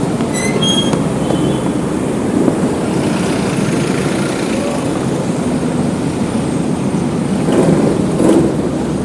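Busy city street traffic: a steady rumble of passing vehicles, with a few short high-pitched squeaks about a second in and a louder vehicle passing near the end.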